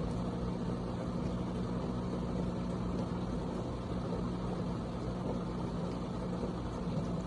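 Farberware portable countertop dishwasher running a wash cycle: a steady motor hum over an even rushing noise.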